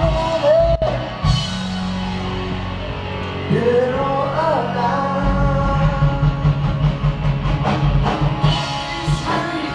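Rock music with a voice singing or wailing over guitar, bass and drums, the drums keeping a steady beat from about halfway through.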